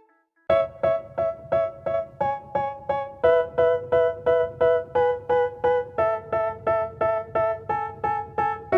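Music: a keyboard, piano-like, plays the same chord over and over at about three strikes a second. It comes in after a brief silence about half a second in, and the chord shifts about three seconds in and again about six seconds in.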